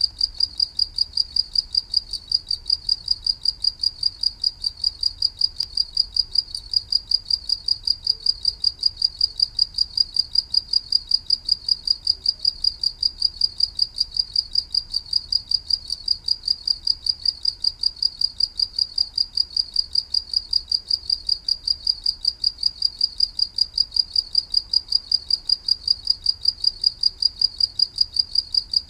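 Cricket chirping steadily, a single high pitch repeated at an even rhythm of a few chirps a second without pause.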